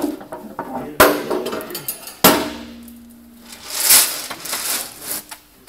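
Hard plastic clacks as a red grain-rescue tube panel is handled and set into shelled corn: two sharp knocks about one and two seconds in, then a hissing scrape around four seconds in.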